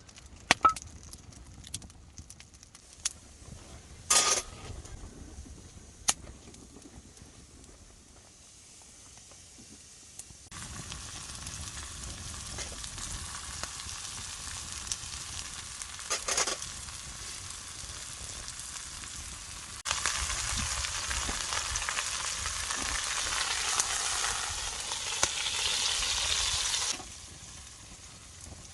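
Food sizzling in a frying pan over a campfire. A few sharp metal clinks come first, then a steady sizzle sets in about a third of the way through and grows louder for several seconds near the end before dropping back.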